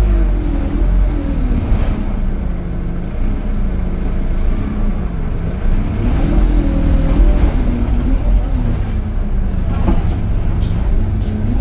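Single-deck bus's diesel engine running, heard from inside the passenger saloon as a steady low rumble. Its pitch rises and falls a few times as the revs change.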